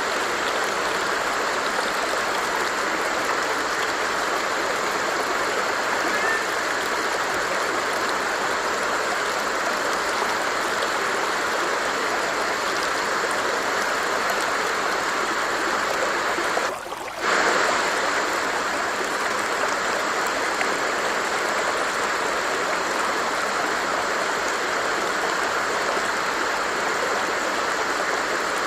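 Flowing stream water rushing steadily, with one brief dip in level about two-thirds of the way through.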